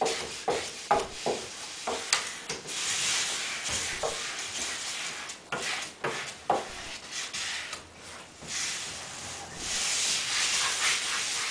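Vinyl wrap being rubbed down by hand onto a wooden cornhole board, through its application tape: a dry back-and-forth rubbing hiss that swells and fades, with scattered light knocks against the board.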